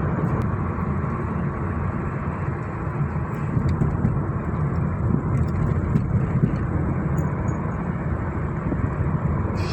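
Car driving along a road, heard from inside the cabin: a steady rumble of engine and tyre noise.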